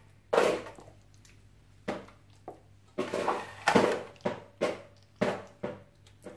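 Wet squelching of a hand squeezing and turning raw chicken pieces in a thick yogurt and spice marinade, in irregular short bursts.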